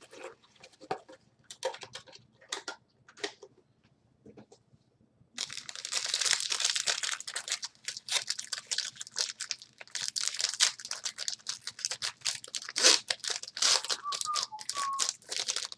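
Plastic wrapping on a sealed box of sports cards being torn open and crinkled: scattered light clicks and rustles at first, then steady crinkling from about five seconds in.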